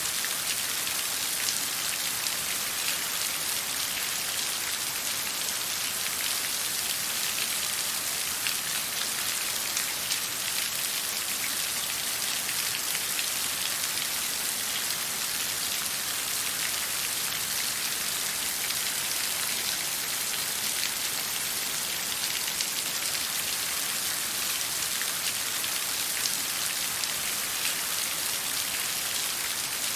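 Steady water noise: an even, unbroken hiss made of many small splashes or drops.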